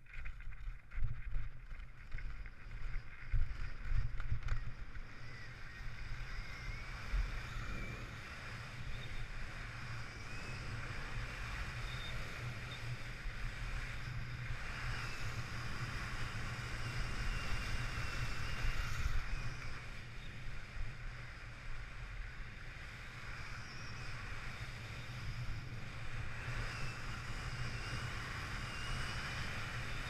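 Skis sliding and scraping over packed snow in a steady hiss, with a low wind rumble on the camera's microphone. It is bumpier for the first few seconds.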